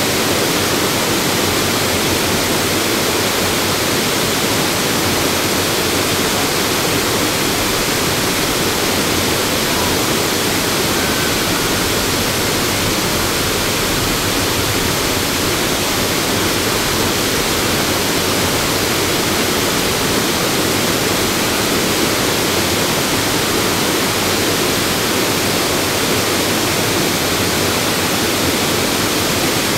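Havasu Falls and the small travertine cascades below it, rushing water making a loud, steady roar.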